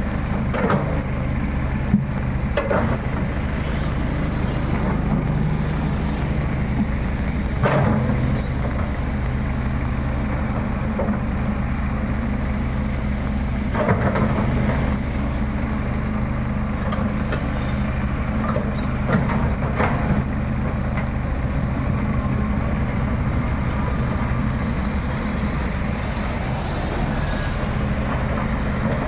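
Excavator's diesel engine running steadily, with a few short sharp knocks or cracks over it at irregular intervals.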